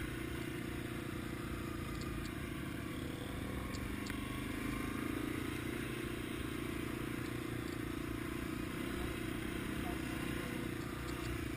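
Yamaha TW200's small single-cylinder four-stroke engine running steadily as the bike rides along, with a few faint light clicks.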